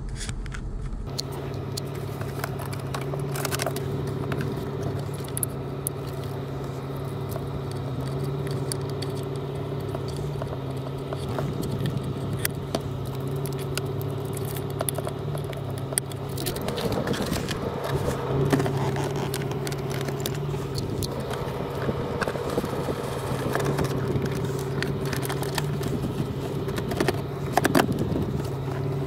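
A car engine running with a steady drone, over many light clicks and rattles.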